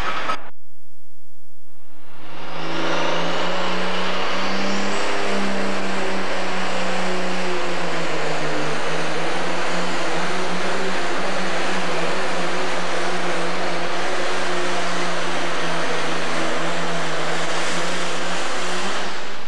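Pro Stock pulling tractor's turbocharged diesel engine at full power, pulling the weight-transfer sled. It comes in loud about two seconds in and holds a steady note, dipping slightly midway, with no let-up to the end.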